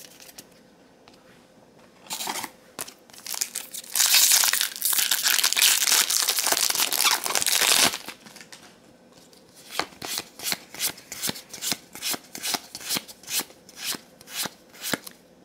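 Handling a booster pack of Magic: The Gathering trading cards. About four seconds of loud crinkling come first. Then cards are flicked one by one from the front of the stack to the back, each with a light slap, about three a second.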